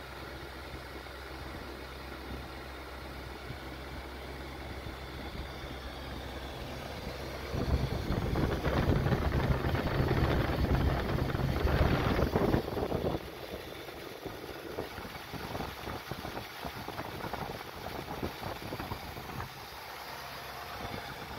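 Mercedes-Benz 450 SLC V8 idling steadily at operating temperature, not a cold start. It gets much louder for about five seconds in the middle, with no change in pitch, then settles back to a quieter, more uneven hum.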